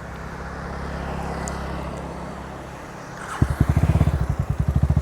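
KTM Duke motorcycle engine running with its exhaust removed, idling steadily at first. About three and a half seconds in it gets much louder and choppy, with separate firing pulses several times a second.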